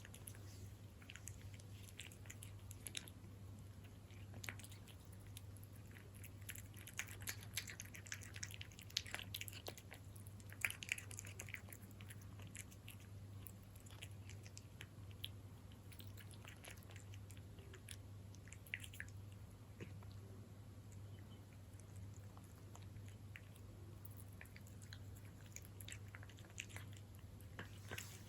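A cat chewing Felix beef-in-jelly wet cat food: faint, irregular wet smacks and small clicks of its mouth and teeth, over a steady low hum.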